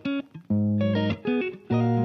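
Background music: guitar playing short phrases of held notes with brief pauses between them.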